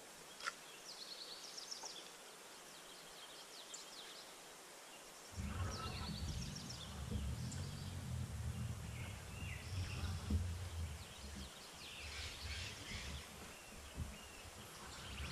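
Small birds chirping and trilling in short, quick phrases. About five seconds in, a low steady rumble comes in under them and stays.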